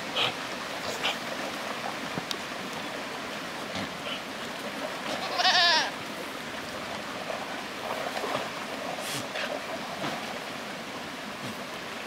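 A herd of miniature goats crossing a shallow stream, with water running throughout. One goat lets out a loud, wavering bleat about halfway through, and a few fainter calls come from the herd.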